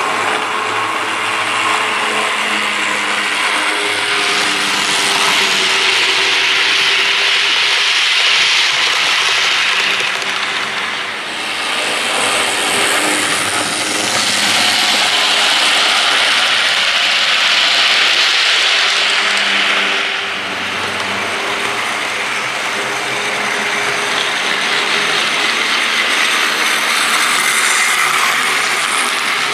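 HO scale model trains running along the layout track: a continuous rattling clatter of wheels on the rails, with the whir of locomotive motors and gears. It grows louder several times as trains pass close.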